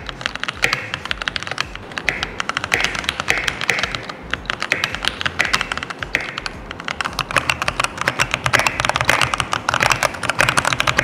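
Keychron K8 Pro mechanical keyboard, fitted with factory-lubed Gateron G Pro Brown switches, being typed on quickly: a continuous, dense stream of keystroke clacks.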